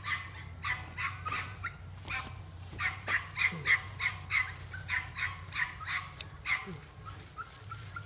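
Animal calls: rapid runs of short, sharp calls, about three or four a second, repeating all through.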